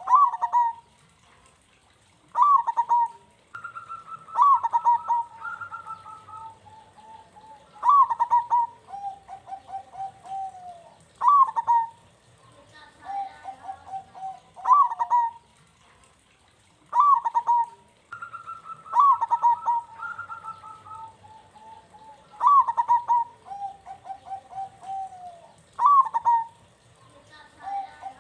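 Zebra dove (perkutut) song. Each phrase opens with a sharp rising note, then runs into soft trilled coos, and the phrases repeat every three to four seconds. Twice a longer, higher drawn-out coo is held for a few seconds.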